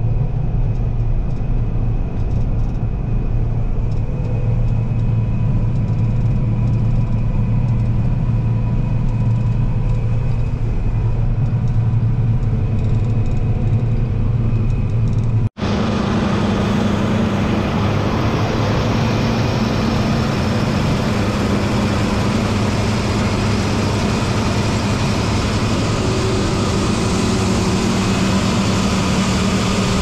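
Heavy farm machine engine running steadily with a constant low drone. About halfway through, the sound drops out for an instant and comes back brighter, with more hiss and a slightly higher hum.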